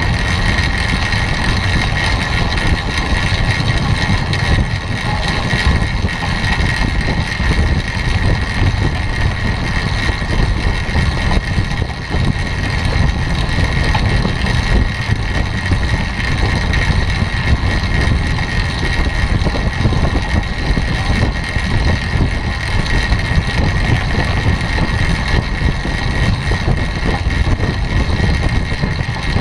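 Steady wind rush buffeting a bike-mounted camera's microphone at about 26 mph, over the continuous rolling noise of a track bicycle on the wooden velodrome boards, with a steady high whine.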